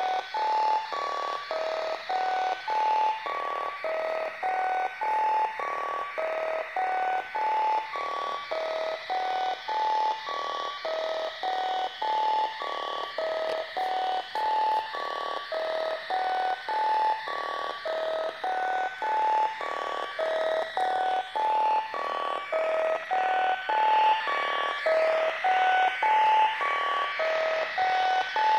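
littleBits modular synth circuit playing a looping sequence of short electronic blips at several stepped pitches, about three a second, each note starting sharply and dying away quickly, over a steady hiss of noise.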